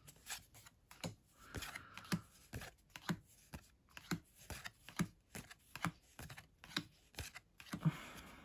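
Pokémon trading cards being slid one by one from the back of a small stack to the front in the hands: a run of soft, irregular card clicks and swishes, about three a second.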